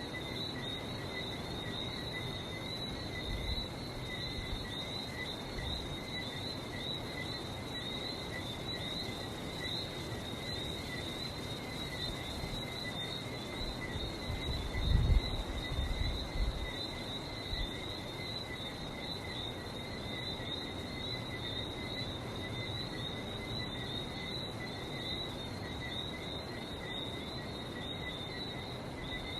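Night chorus of many whistling frogs, the small Barbados tree frogs, calling non-stop in overlapping high chirping whistles over a low background rumble. About halfway through comes a brief louder low thump and rumble.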